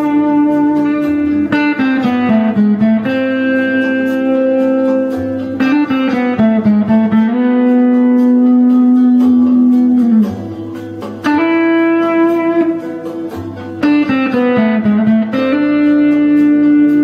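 Slow instrumental melody of long held notes that slide up and down between pitches, over plucked guitar.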